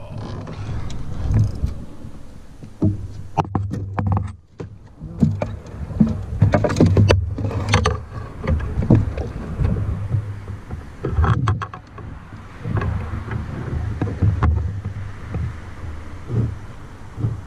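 Handling noise in a canoe while a hooked smallmouth bass is reeled in and landed: repeated low rumbling thumps against the hull, with scattered sharp knocks and clicks from the rod, reel and gear.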